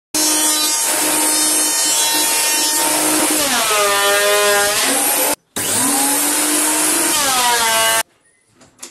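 Benchtop thickness planer running loud with a steady motor whine and the hiss of the cutterhead. The motor's pitch sags and recovers twice as a wooden block feeds through under load. It cuts off abruptly near the end, leaving a few faint clicks.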